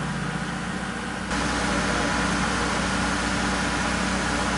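A motor vehicle engine idling steadily, a low, even hum. About a second in it becomes abruptly louder and hissier.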